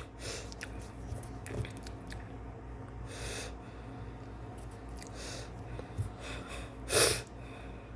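A person breathing and sniffing close to the microphone, a few soft puffs with a sharper sniff about seven seconds in, over a faint steady low hum.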